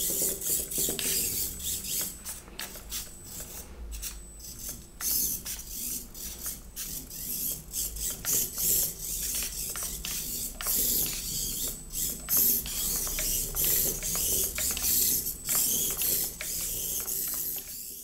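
Miniature RC car's tiny motor and gears whirring in repeated bursts as it is driven back and forth on a wooden tabletop, with a scatter of small clicks and scuffs.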